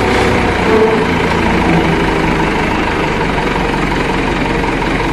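Dump truck engine running steadily while its hydraulic tipper bed is raised to tip out a load of sand.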